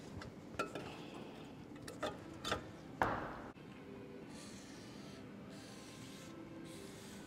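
Faint light metal clicks and scrapes of a hand tool in a wheel hub's bearing bore, then several short hissing bursts of an aerosol spray can aimed into the bore.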